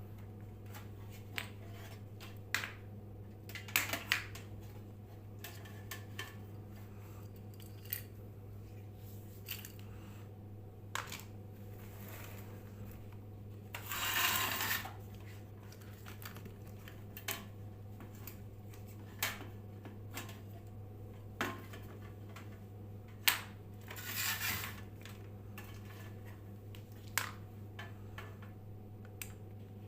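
Small metal parts and tools clinking and being handled, with scattered sharp clicks and two longer scraping stretches, over a steady low electrical hum.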